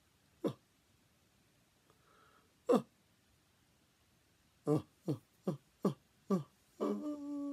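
A person's voice making a few short vocal sounds, one about half a second in and another a little later, then a quick run of brief syllables near the end, with room tone in the pauses.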